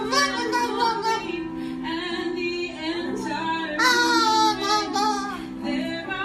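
Music: a song with a high-pitched voice singing in wavering, sliding phrases over steady sustained backing notes.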